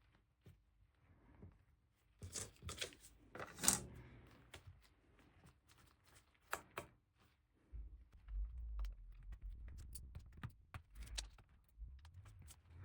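Faint, irregular clicks and taps of small repair tools and fingers working on the opened iPad Pro's internals near the battery connector, with a low rumble from about eight seconds in.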